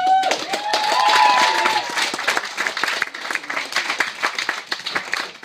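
Wedding guests applauding, with a few raised voices cheering in the first couple of seconds. The clapping thins out near the end.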